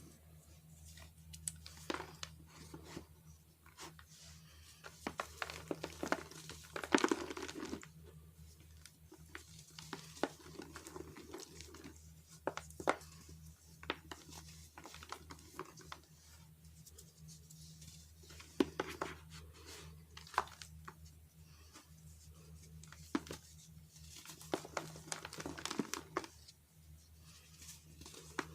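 Soft, dusty chunks of dried baking soda being crushed and crumbled, with irregular bursts of crunching and crumbling. A steady low hum runs underneath.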